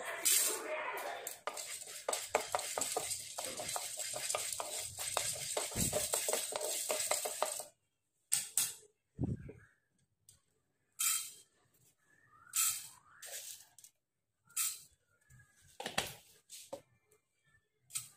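Dry chana dal grains poured from a plastic spoon into an empty nonstick kadai, rattling and scattering across the pan for several seconds. After that, a string of separate short taps and clinks as more seeds go in and the spoon touches the pan.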